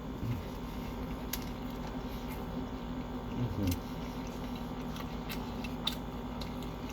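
A person chewing a mouthful of Subway sub sandwich, with a few faint clicks and a steady low room hum underneath.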